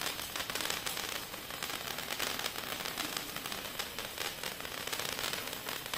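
I Razzi Group single-tube crackling fountain burning, giving a steady hiss as it throws its spray of sparks.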